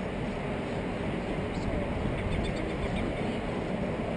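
Steady outdoor background noise with a low rumble, and a few faint high ticks about two seconds in.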